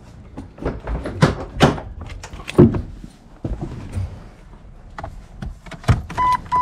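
Jeep Cherokee XJ driver's door opened and someone climbing into the seat: a string of separate knocks and thumps. Near the end the dashboard warning chime starts, evenly spaced beeps at one pitch, about three a second.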